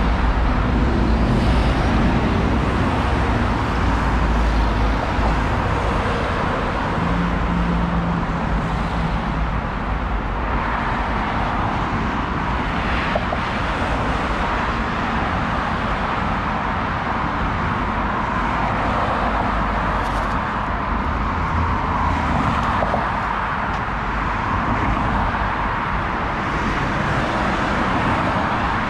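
Steady rumble and road noise of a moving motor vehicle.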